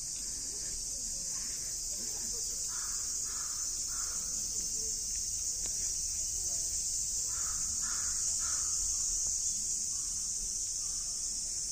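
A crow cawing in two runs of three caws, one about three seconds in and another about seven to eight seconds in. Under them runs a steady high-pitched insect drone, the loudest thing throughout.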